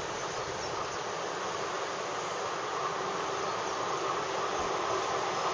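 Electric-hauled tank-car freight train approaching from a tunnel: a steady rushing rumble that slowly grows louder.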